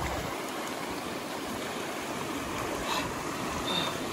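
Shallow mountain creek rushing over rocks, a steady rush of water.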